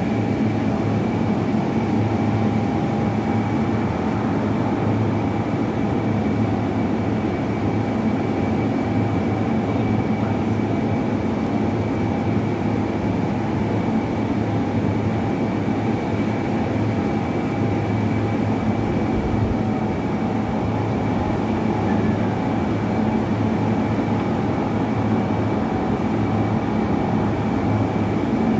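Steady drone of industrial machinery: a low hum with a few constant higher tones over a noisy rumble, unchanging in level.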